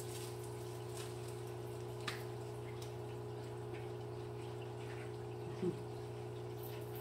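Quiet room tone with a steady low electrical hum, a faint click about two seconds in, and a brief falling hum of a voice, like a closed-mouth "mm", about five and a half seconds in.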